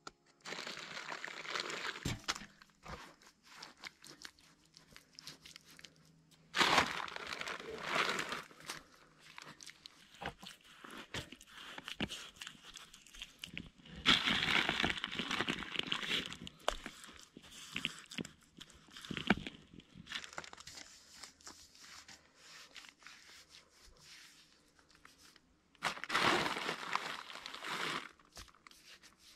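Crunching and rustling of dry material being handled, in four bouts of a couple of seconds each, with scattered clicks and crackles between them.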